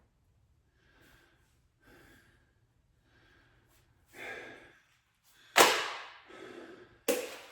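A man breathing hard through cable crunches: soft breaths at first, then two sudden forceful exhales about a second and a half apart, near the end.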